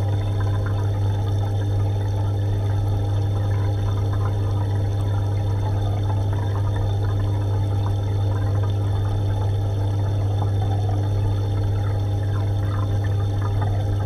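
Aquarium pump or filter running with a steady low hum, over a constant trickle of moving water.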